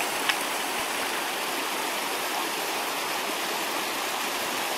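Snowmelt stream running down a rocky gully: a steady rush of flowing water, with one short click near the start.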